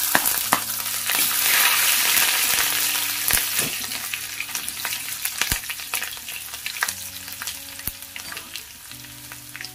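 Green chillies and grated ginger sizzling in hot mustard oil in a steel kadhai, stirred with a steel ladle that clicks and scrapes against the pan. The sizzle is loudest in the first few seconds, then dies down.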